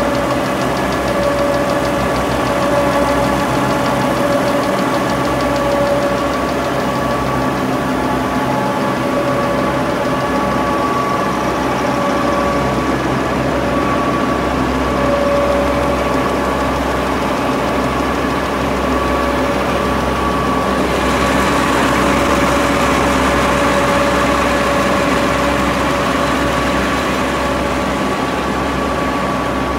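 1993 Sanden 851 six-colour web offset press running: a loud, steady mechanical drone with a couple of steady whining tones, turning a little hissier about two-thirds of the way through.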